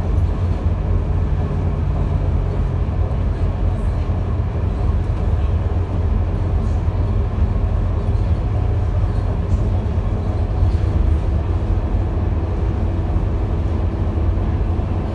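Cabin noise of a Scania K230UB diesel city bus under way: a steady low rumble of engine and road noise.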